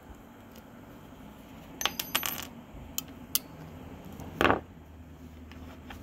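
Small metallic clicks and clinks of needle-nose pliers prying a steel E-clip off an arcade joystick's shaft: a quick cluster of ringing clicks about two seconds in, two single clicks a second later, then a louder brief clatter about four and a half seconds in.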